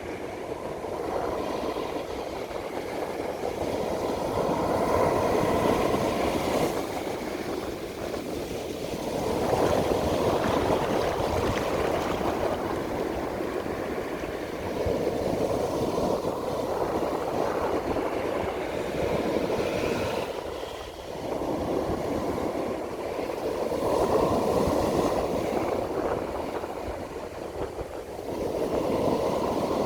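Ocean waves breaking on a beach: a continuous surf noise that swells and eases every four to six seconds as each wave rolls in and washes back.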